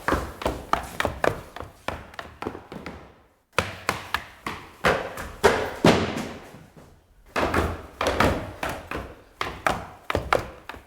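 Footsteps on stairs, quick steps at about four a second. They come in runs, each growing fainter as it goes: one ends about three seconds in, a second follows after a short gap, and a third begins about seven seconds in.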